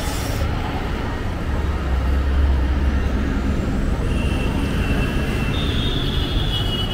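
Street traffic: vehicle engines running, with a heavier low rumble from a passing vehicle about two seconds in. A thin, high steady tone comes in during the last few seconds.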